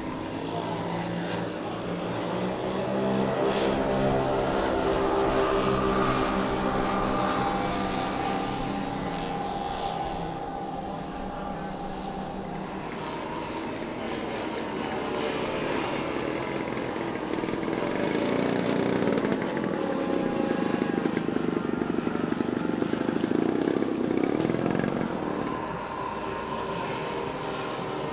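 The multiple propeller engines of a large-scale RC B-24 Liberator model running at takeoff power as it rolls, lifts off and climbs away. Their drone swells twice and eases off as the plane passes.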